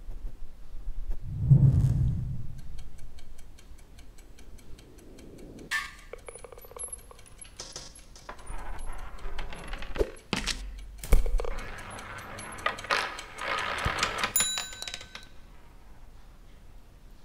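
Sound effects of an animated chain-reaction machine. A low thump comes first, then a run of rapid even ticking, then clattering and sharp knocks of small hard objects as balls roll and dominoes topple. Near the end comes a short ringing desk-bell ding.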